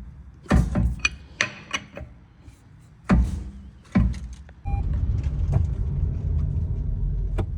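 A few knocks and thumps, like a car door shutting, then about four and a half seconds in the Toyota Sienna's 3.5-litre V6 starts and runs with a steady low rumble.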